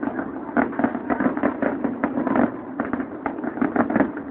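Fireworks display: a dense, continuous run of bangs and crackles, several a second and overlapping, with no pause.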